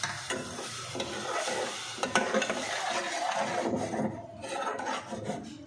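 A spoon stirring and scraping through onion-tomato masala in a steel pot, with the masala sizzling in hot oil after a splash of water has been added to help it fry. The stirring strokes are irregular, busiest in the middle, and thin out near the end.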